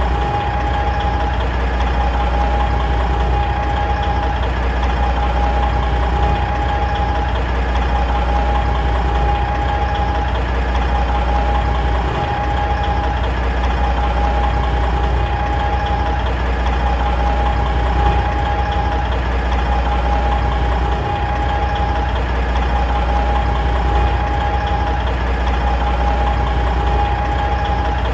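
Big truck diesel engine idling steadily, with a constant whine above the low engine sound.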